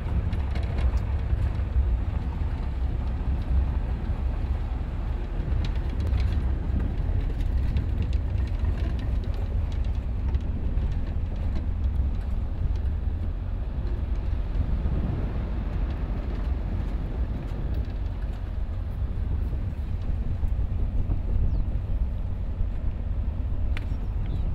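Open safari game-drive vehicle driving on a dirt track: a steady low engine and road rumble that does not let up.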